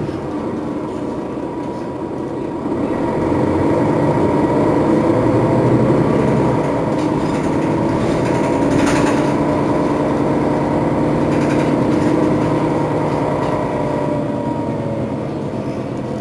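Setra S415 NF city bus's diesel engine running as the bus drives, with a steady high whine over it. It gets louder about three seconds in and eases off near the end.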